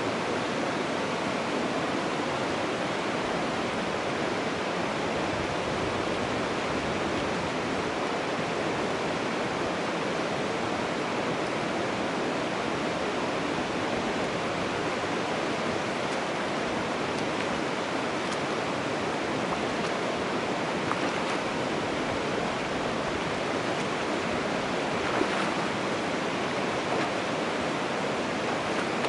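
Steady rushing of running water, like a creek or small cascade, with a few faint splashes in the second half.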